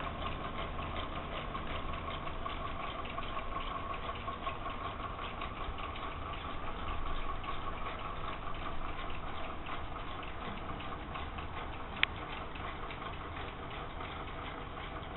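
A whirligig's mechanism turning, with rapid, even clicking over a steady whir, and one sharp click about twelve seconds in.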